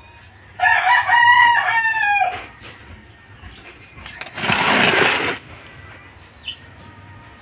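A rooster crows once: a single call of a little under two seconds that drops in pitch at its end. About four seconds in comes a loud rush of noise lasting about a second.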